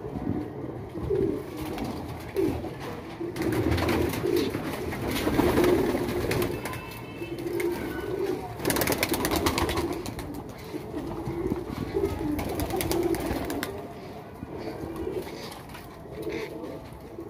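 A flock of domestic high-flyer pigeons cooing, several birds calling over one another in repeated low, rolling coos.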